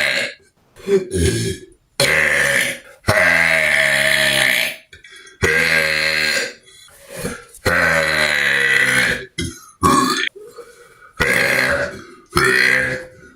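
A person burping loudly over and over: deliberate warm-up burps, about eight in a row. Each burp has a clear pitch, and the longest last a second or two.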